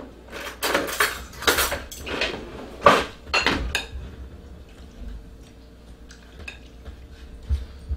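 Cutlery and dishes clinking as a serving utensil scoops pasta from a glass bowl onto a plate. A cluster of sharp clinks comes in the first half, then quieter scraping and light ticks.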